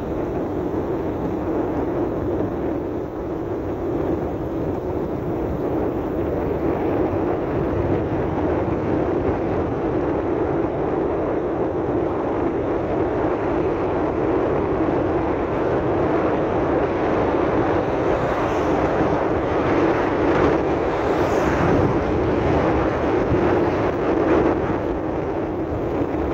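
Steady rumble of a vehicle driving on a rough dirt road under construction: engine and tyre noise heard from inside the vehicle, growing harsher for a few seconds about two-thirds of the way in.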